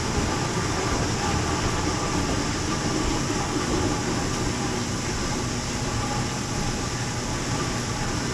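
Coffee cherry pulping machine running steadily, a continuous mechanical rattle and hum.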